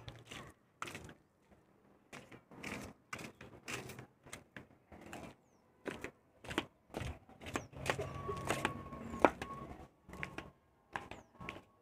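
Irregular footsteps and knocks from a handheld phone being carried across bare concrete and down concrete stairs. A faint steady high tone is heard from about halfway through until near the end, with one sharp click during it.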